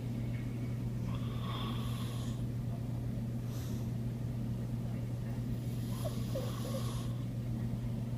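A sleeping pet snoring: two drawn-out snores about five seconds apart, with a short softer breath between them, over a steady low hum.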